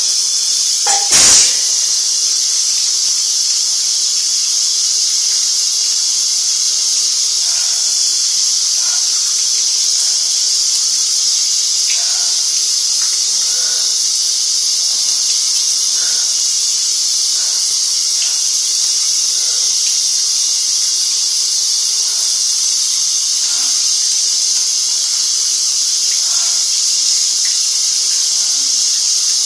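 Shower spray running steadily with a loud hiss. One sudden loud burst comes about a second in.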